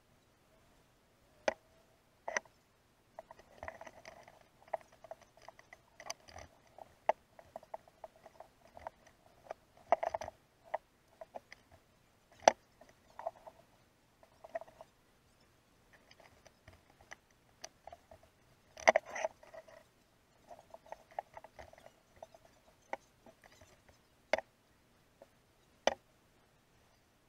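Paper templates and tape being handled around a glass wine bottle: intermittent crinkling and rustling, broken by several sharp clicks and taps.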